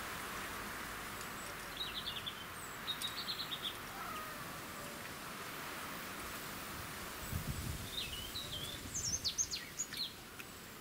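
Small birds chirping in short high phrases, a few times and busiest near the end, over a steady outdoor background hiss.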